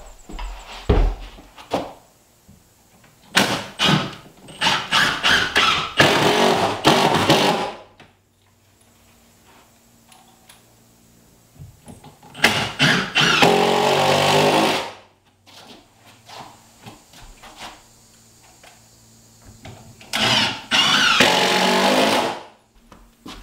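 Cordless power drill running in bursts as slab wood trim is fastened to the wall: a flurry of clicks and short runs, then two longer runs of about two seconds each, with pauses between.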